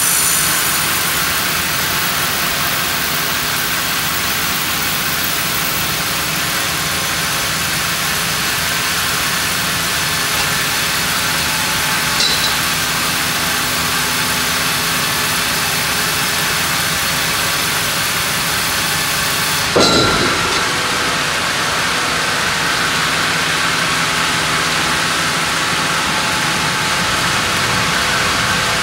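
Sawmill band saw with its log carriage cutting a large monkeypod (rain tree) log: steady machine noise with a high hiss from the cut. The cut ends about twenty seconds in with a clank, and the machinery keeps running afterwards.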